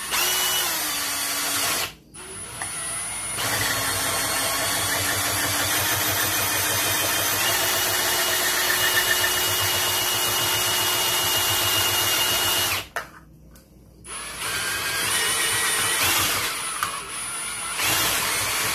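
Cordless drill boring a hole with a 7/8-inch spade bit, run in several stretches with three short stops; the motor whine rises in pitch each time it starts. The spade bit is wobbling and not cutting as cleanly as wanted.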